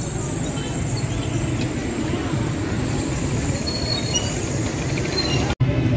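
Busy street traffic: motorcycle and car engines running close by in a steady rumble, broken by a split-second gap near the end.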